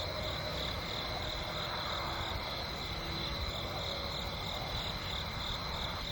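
Chorus of night insects in woodland: a steady high chirping that pulses at an even rate, over a low steady background rumble.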